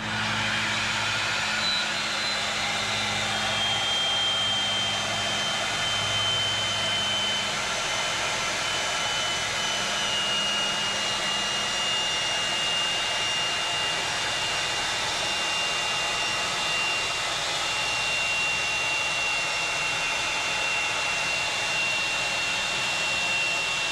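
Electric air pump running steadily, inflating an Air Skirts inflatable RV skirting tube. A steady rushing noise carries a high whine that drifts slowly lower in pitch.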